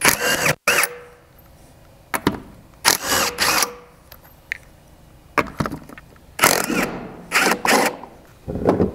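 Cordless impact wrench with a 19 mm socket spinning lug nuts off a spare-tire mount. It runs in several short bursts, its whine rising and falling with each one.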